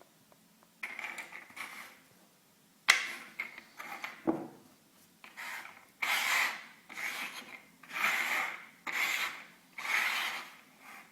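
Repeated rubbing strokes: a few irregular at first, with a sharp click about three seconds in, then a steady run of about one stroke a second.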